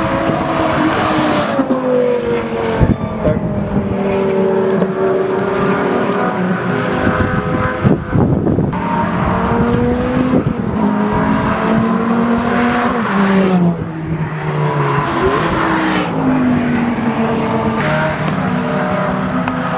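Supercar engines running at speed on a track, several at once, their pitch repeatedly rising and falling as they rev up and lift off.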